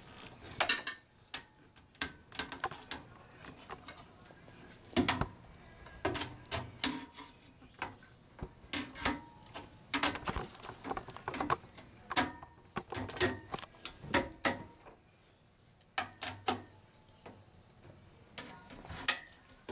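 Irregular metallic clicks and taps of aluminum balusters being fitted into the top and bottom rails of an aluminum railing.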